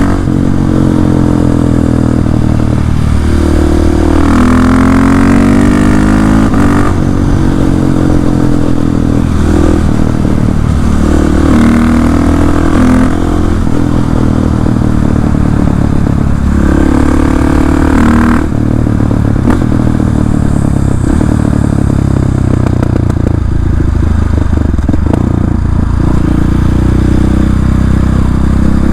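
KTM 690 SMC R single-cylinder engine through an Arrow exhaust with the dB-killer removed. It accelerates hard, its pitch rising and dropping back at each gear change. In the last third the throttle is off and it runs lower and rougher, with irregular spitting crackles from the exhaust.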